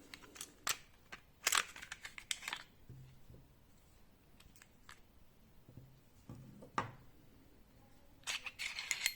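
Sharp clicks and short scrapes of a Glock 44 pistol being handled and taken apart, with a cluster of clicks about a second and a half in and another near the end.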